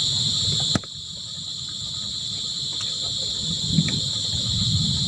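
Crickets chirring in a steady, high-pitched chorus. The whole sound drops suddenly in level just under a second in, then slowly swells back, with a low, uneven rumble underneath.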